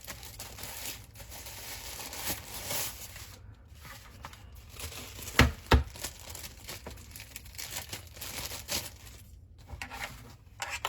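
Packaging being crinkled and torn open while unpacking a video light panel, with two sharp knocks close together about halfway through.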